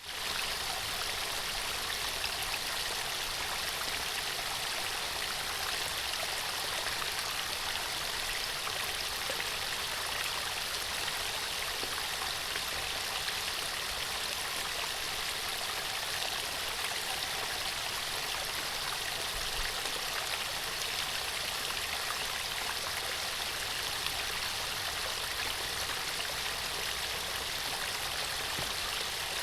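Running water: a steady, even rush of a stream that holds constant without breaks.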